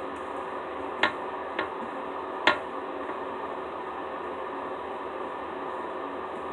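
Slime being worked by hand, giving three short sharp clicks or pops about a second in, shortly after, and near the middle, over a steady background hiss. The slime is turning sticky from added perfume.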